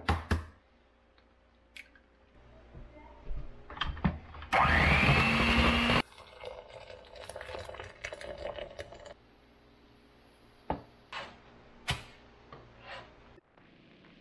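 A quick series of kitchen sounds: a few knocks of utensils on the counter, then an electric mixer whirring up to speed for about a second and a half, the loudest sound. Water pours from a kettle into a pot, a few sharp clicks follow, and near the end bacon sizzles softly in a cast-iron skillet.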